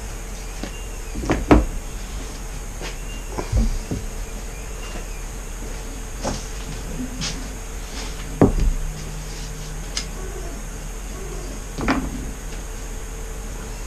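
Steady room hum broken by about seven scattered knocks and clunks, the loudest about a second and a half in and again past the middle.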